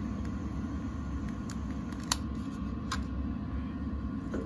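Steady low mechanical hum, typical of a wood furnace's blower motor, with three sharp clicks, the loudest about two seconds in.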